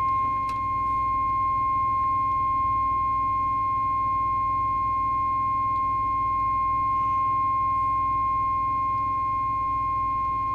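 Steady 1 kHz audio test tone held unbroken, used as the modulating signal while the CB radio's modulation is being set.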